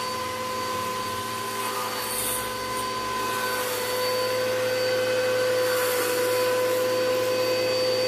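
Electric pressure washer running, with a steady motor whine and the hiss of its spray, washing down a car's engine bay.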